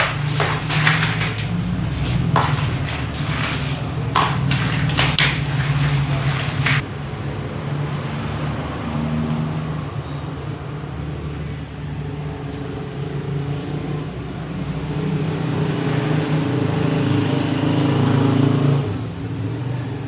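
A low motor or engine hum runs steadily and swells for a while before dropping off near the end. Sharp knocks and scraping come and go during the first seven seconds or so.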